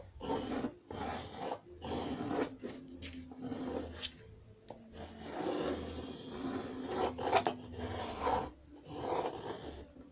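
Pencil lead of a drawing compass scratching across brown kraft paper in uneven strokes as a circle is drawn, with brief pauses and two sharp ticks of the compass being handled.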